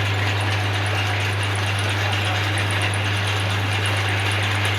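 Manual metal lathe running, its electric motor giving a steady hum under an even whir, with no change in speed.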